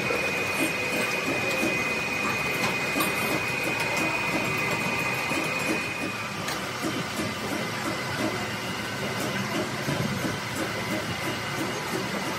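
Crankshaft grinding machine running with a Nissan six-cylinder crankshaft turning in it: a steady high whine over a fast, even clatter. The whine drops slightly in pitch about halfway through.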